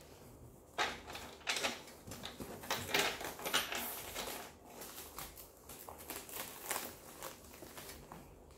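A quilted leather shoulder bag being handled, pressed and lifted on a table. The sound is a run of irregular rustles, taps and soft knocks, busiest a few seconds in and thinning out near the end.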